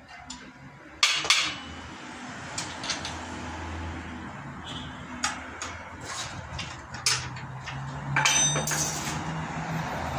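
Scattered metallic clinks and knocks as a steel rule and the rip fence are handled against a table saw's metal top while the fence is set for a cut, with a louder, ringing clatter about eight seconds in.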